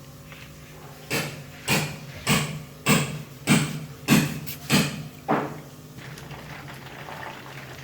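A run of about eight knocks, roughly two a second, starting about a second in and stopping after about five seconds, the last one weaker, over a low steady hum.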